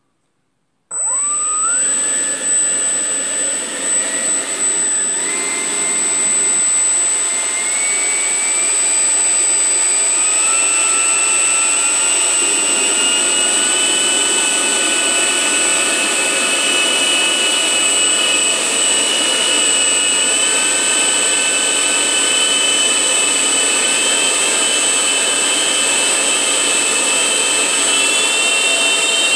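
Twin electric ducted fans of a Freewing F-15 RC jet, fitted with 3D-printed whistles, on their first startup: they spool up suddenly about a second in and run loudly, with a steady high whine over tones that climb in pitch in steps as the throttle is raised.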